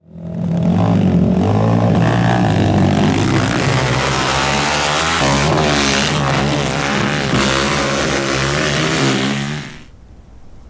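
Race ATV engine revving and holding high rpm, its pitch stepping and wavering, then fading out about a second before the end.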